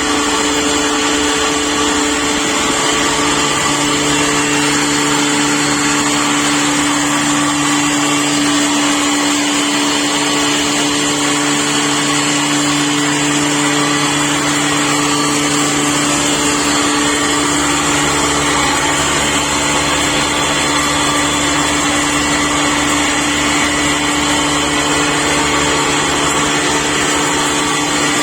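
12-inch double-stage blower-type pulveriser, driven by a 10 hp electric motor, running steadily: a loud, even mechanical rush with a held hum.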